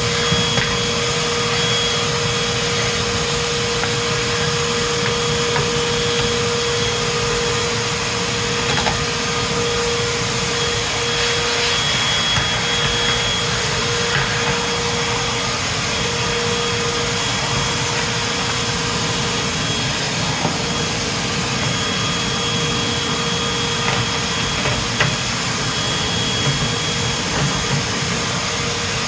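Vacuum cleaner running steadily while sucking dust from around a refrigerator's condenser lines and fan, with a few small knocks of the nozzle or debris.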